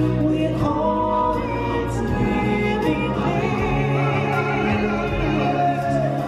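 Music from a live musical stage show: singers with vibrato over an orchestral accompaniment, with a long held note near the end.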